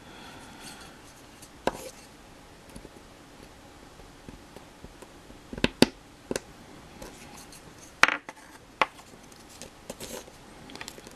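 Scattered sharp plastic clicks and taps as small Gunpla model-kit parts are handled and pressed with chopsticks, about six in all, with a quick double click near the middle.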